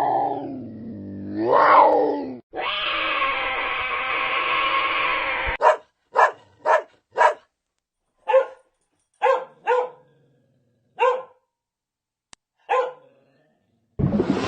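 A cat meowing twice, then a held, steady pitched sound for about three seconds, then a dog giving about nine short, sharp barks at irregular spacing. A burst of noise begins just before the end.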